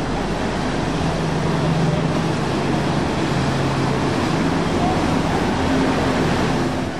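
Yamaha 242 Limited jet boat running at speed, a steady engine hum over the rush of its wake; the engine note goes higher for about a second near the end.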